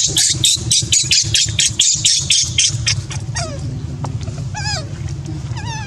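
A fast, rhythmic rasping, about six strokes a second, for the first three seconds, then a monkey's high, wavering cries, several short calls rising and falling in pitch.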